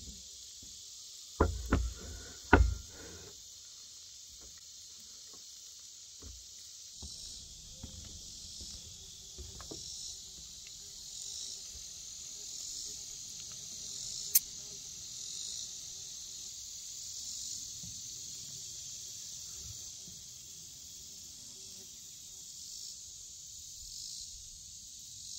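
Steady, high-pitched chorus of insects. Two loud knocks come about a second and a half and two and a half seconds in, and a single sharp click comes near the middle.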